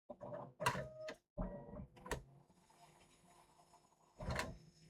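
3D printer running: the stepper motors whir in short moves with shifting tones for about two seconds, then settle into a steady hum. A brief louder noise comes about four seconds in.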